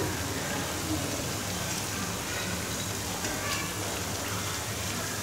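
Potato hash brown patties shallow-frying in hot oil in a pan, a steady sizzle.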